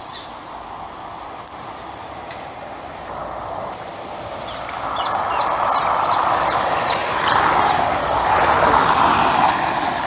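A parakeet giving a run of short, shrill, falling calls, about two or three a second, for a few seconds midway. Under it runs a steady traffic noise that grows louder in the second half.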